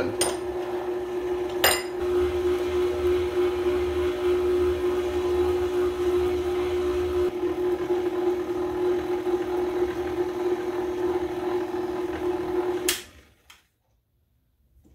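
KitchenAid tilt-head stand mixer running steadily at speed, its flat beater mixing muffin batter, then switched off about thirteen seconds in. Two sharp clicks come in the first two seconds.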